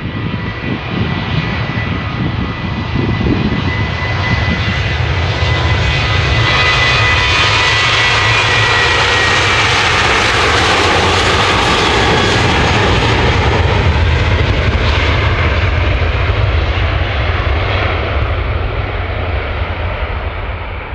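Ryanair Boeing 737-800 jet engines at take-off power as the plane rolls down the runway past the listener. A steady fan whine drops in pitch as it goes by, and the jet roar builds to its loudest about halfway through, then fades as the plane moves away.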